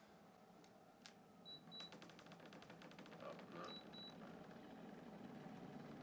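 Wall-mounted heat pump indoor unit being switched on by remote: a click, two pairs of short high beeps as the unit takes the signal, a run of rapid ticking, then the low steady hum of the unit starting up, growing slightly louder near the end.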